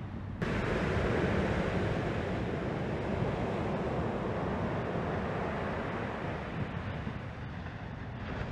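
Wind on the microphone over breaking surf: a steady rushing noise that steps up in level about half a second in.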